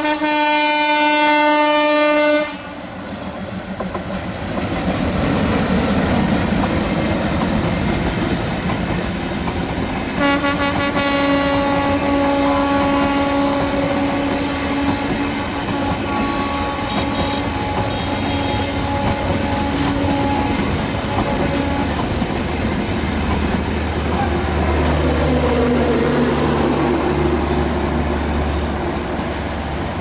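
Air horn of a Bangladesh Railway ALCO diesel locomotive blowing long warning blasts to clear people off the track. The first blast cuts off about two seconds in, and the rumble and wheel noise of the passing train follow. A second, slightly lower horn blast starts about ten seconds in and fades out over the next ten or so seconds, and a low steady hum comes in near the end.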